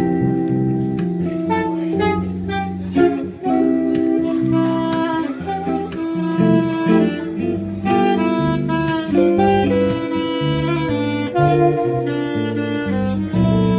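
Live band playing a jazzy instrumental: a saxophone plays the melody over electric guitar and bass guitar.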